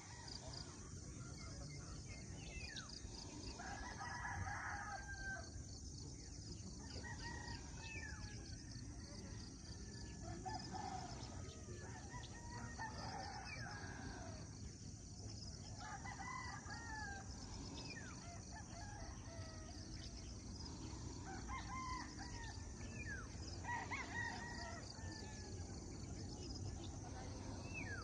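Roosters crowing, one crow after another every few seconds, over a steady low background hiss.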